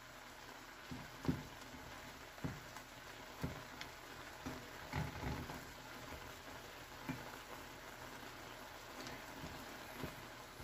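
Mushrooms and shrimp simmering in liquid in a frying pan with a faint, steady bubbling patter, and irregular soft knocks of a wooden spatula stirring against the pan.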